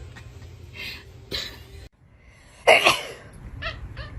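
A single short, explosive burst of breath, sneeze-like, about two and a half seconds in; it is the loudest sound. Two fainter breathy bursts come before it, and a few light clicks follow.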